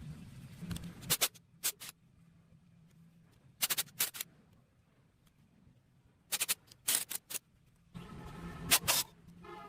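Short clusters of sharp clicks and taps, with a low hum coming in near the end.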